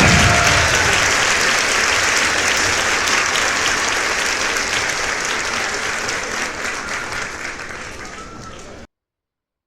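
Applause sound effect, clapping that fades away steadily and then cuts off abruptly near the end.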